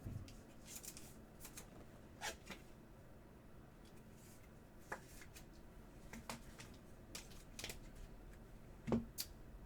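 Trading cards being handled: faint scattered rustles, slides and light taps of card stock, with the most distinct taps near the end.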